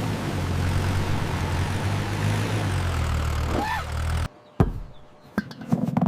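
A steady engine-like drone that cuts off abruptly about four seconds in, followed by a single sharp knock and then a run of light clicks and knocks.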